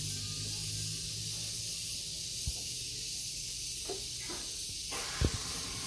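Steady background hiss with a low hum beneath it, broken by a soft knock about two and a half seconds in and a louder one near the end.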